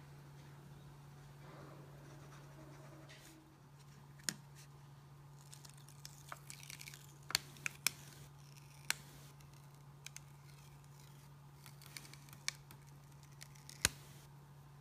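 Quiet handling of a sketchbook page: scattered sharp ticks and patches of faint scratching, over a steady low hum.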